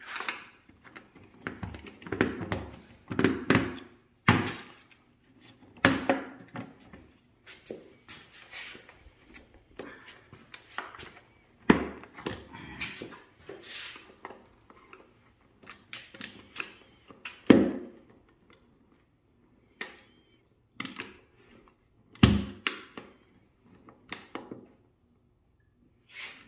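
Hands tugging and prying at the plastic valve cover of a Ford 5.0L Coyote V8, which is still held on by its seals: irregular clicks, knocks and rattles, with a handful of louder thunks.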